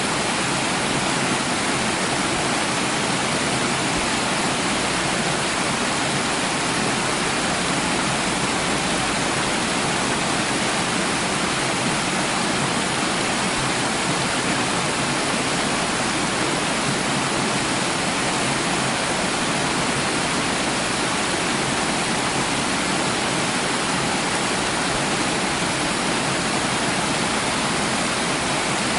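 Running water, a steady, unbroken rush with no change over the whole stretch.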